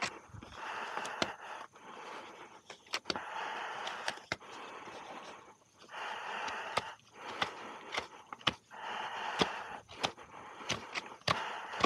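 Hoof knife paring the sole of a horse's hoof: a series of scraping strokes, each about a second long with short pauses between, and sharp clicks scattered among them.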